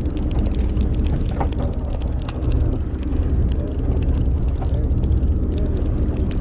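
Steady low drone of the charter boat's engine, with light clicks from a spinning reel being cranked and faint voices in the background.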